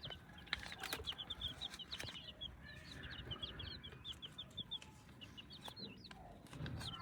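Young chicks peeping, a steady stream of short high chirps, with a few lower clucks from a hen among them.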